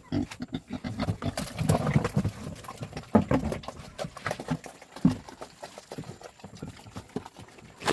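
Pigs at feeding time: short low grunts among a steady patter of clicks and knocks from eating and jostling at the feed.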